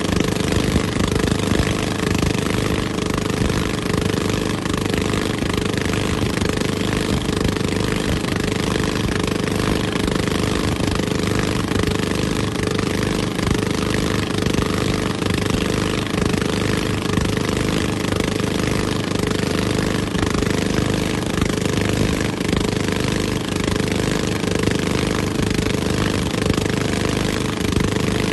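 A motorboat engine running steadily, with an even hiss of wind and water over it.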